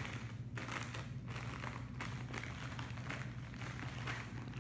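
Packaging crinkling and rustling in irregular bursts as it is handled, over a steady low hum.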